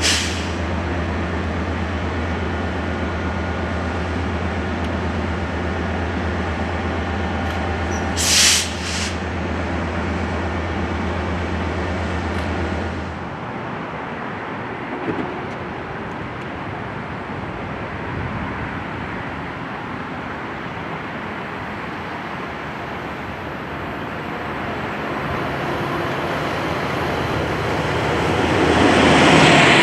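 A Metrolink diesel locomotive idles with a steady low engine drone, and a short hiss of air cuts in about eight seconds in. After a cut, an approaching Metrolink commuter train grows steadily louder toward the end.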